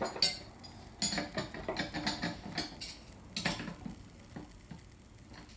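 Metal hand tools and machine parts clinking and clattering as they are handled: a series of separate sharp clicks and knocks, the loudest about a second and three and a half seconds in.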